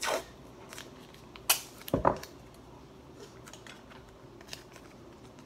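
Hands working with a strip of blue tape and small parts: a brief crackle of tape at the start, a sharp click about a second and a half in, and a knock just after, then a few faint taps.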